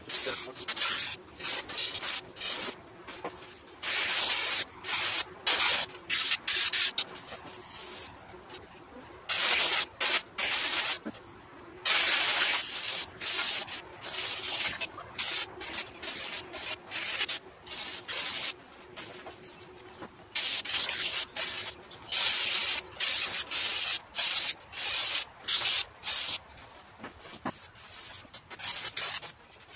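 Sandpaper scrubbing over a Nissan Skyline HR31 bonnet in quick back-and-forth strokes. The strokes come in runs, with short pauses between them.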